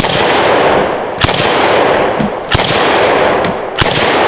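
DDI LA-K12 Puma semi-automatic bullpup 12-gauge shotgun, fitted with a Saiga-style muzzle brake, fired four times in steady succession about a second and a quarter apart. Each loud report is followed by a long echoing tail that carries into the next shot.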